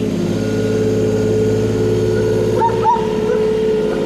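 John Deere compact machine's diesel engine running steadily while working dirt. About three-quarters of the way through there is a brief, wavering high-pitched sound.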